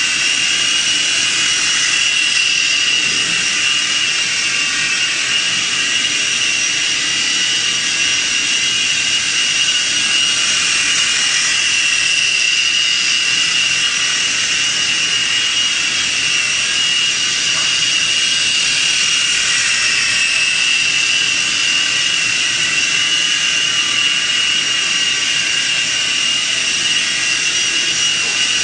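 Syma S026 mini RC tandem-rotor helicopter's small electric motors and rotors running in flight: a steady high-pitched whine over a rushing hiss, the pitch dipping slightly about two-thirds of the way through.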